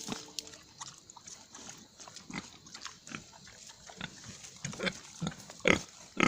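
Pigs grunting in short separate bursts, the loudest two close together near the end.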